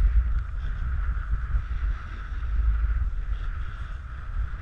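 A snowboard sliding steadily over packed snow, with wind buffeting a GoPro on a pole: an uneven low rumble under a steady hiss.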